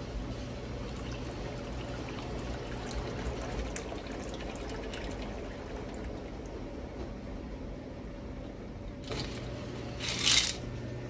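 Liquid being poured, over a steady low hum. A short rush of noise comes about nine seconds in, and a louder, brief one about a second later.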